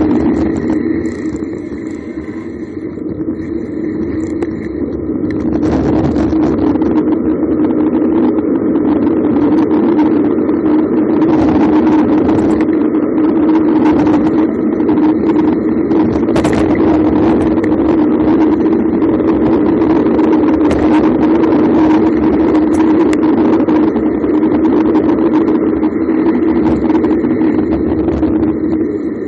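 Wind rushing over the microphone and a steady tyre hum from a bicycle descending fast on asphalt. It eases for a few seconds near the start, then holds steady.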